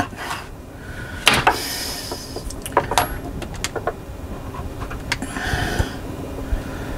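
Scattered clicks and knocks of handling, with light metallic clinks and two short spells of rustling.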